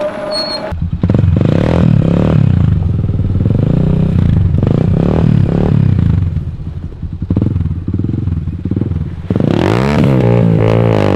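Small ATV's single-cylinder engine revving up and down while the quad creeps down a loose slope into a mud pit. Near the end it is throttled hard in repeated rising and falling surges.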